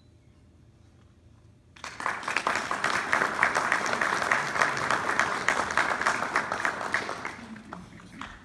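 Audience applauding. It breaks out suddenly about two seconds in, after a moment of quiet, holds steady, then thins out and dies away near the end.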